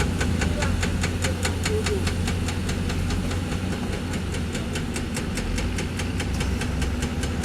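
Heavy diesel construction machine engine running steadily, with a rapid even ticking, about five ticks a second, over its low hum.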